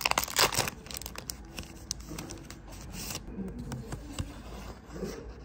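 Rustling and scraping of things being handled, loudest in a few bursts at the very start, then quieter scratches and small clicks.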